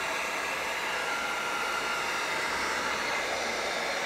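Electric heat gun running, a steady rush of blown air, played over a leather shoe to melt layers of wax polish into the leather.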